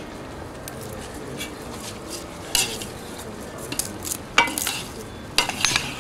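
Metal skimmer stirring in a cast-iron kazan of Khorezm plov, scraping and clinking against the pot a few times, loudest in the second half, over a steady sizzling hiss from the pot.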